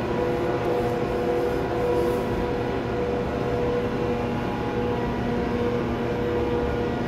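Passenger coaches rolling slowly past as a train pulls out: a steady rumble of wheels on rail, with a few steady tones held above it.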